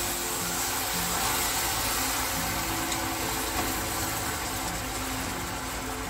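Hot melted sugar caramel in an aluminium flan pan sizzling and boiling hard with a steady hiss of steam, just after water has been poured onto it.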